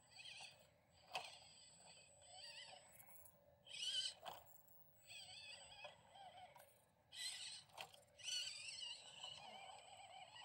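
Axial SCX24 1/24-scale crawler's small electric motor and geartrain whining in short stop-start spurts, the pitch wavering with the throttle as it crawls over rock. There are a few sharp clicks, about one, four and eight seconds in.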